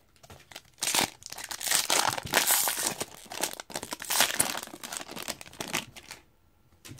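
A hockey card pack's wrapper being torn open and crinkled for about five seconds, starting about a second in.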